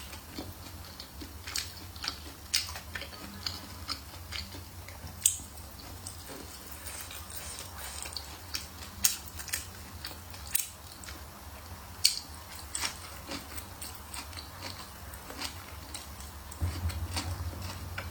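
Close-miked biting and chewing of spicy pig's trotters, with scattered sharp clicks and crunches every second or so.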